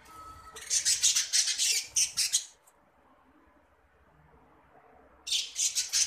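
Budgerigars squawking in two harsh, rapid bursts: one of about two seconds starting just after the start, and a shorter one near the end.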